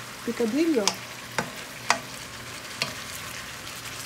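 Picadillo of ground beef and potatoes sizzling in a pan as it is stirred, with a utensil knocking sharply against the pan three times.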